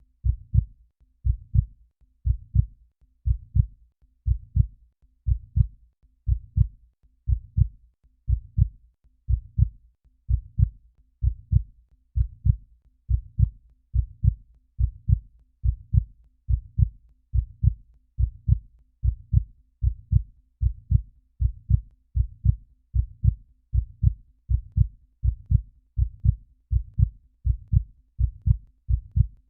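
Heartbeat sound effect: a steady rhythm of low double thumps (lub-dub), about one beat a second.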